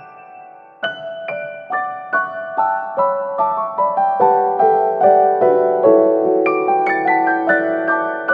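Background piano music: struck notes that ring and fade, with a short pause near the start, then notes about twice a second building into fuller chords.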